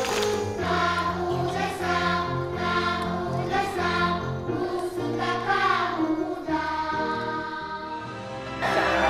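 Young children singing together as a choir over a music backing track. Near the end the song gives way to a different piece of background music.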